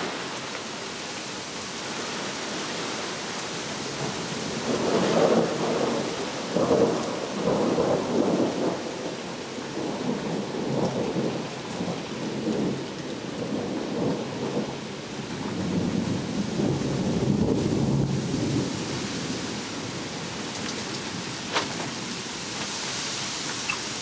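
Steady rain with a long roll of thunder rumbling in waves through the middle, loudest twice. A short sharp click near the end.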